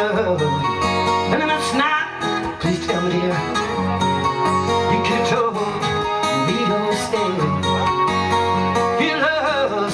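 Two acoustic guitars playing a tune together, with steady strummed strokes under picked notes.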